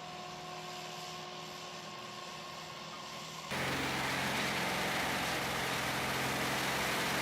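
Heavy machine engine running steadily, with a few faint steady tones at first. About three and a half seconds in, it cuts abruptly to a louder, steady engine and machinery noise.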